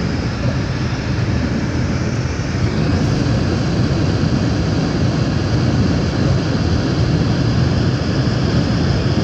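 A car driving, making a steady low rumble of road and engine noise.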